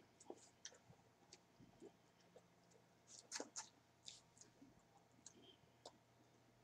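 Near silence with faint, scattered mouth clicks and smacks of people chewing food, a few slightly louder ones about three seconds in.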